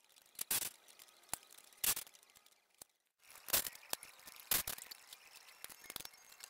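Irregular clicks, clinks and short scraping rustles of hand tools being worked on the tractor engine's mounting bolts, a handful of separate sounds with a short quiet gap about halfway through.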